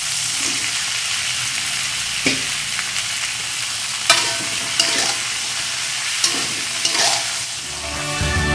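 Chillies, leunca berries and oncom stir-frying in hot oil in a wok: a steady sizzle, with the spatula knocking and scraping against the wok now and then.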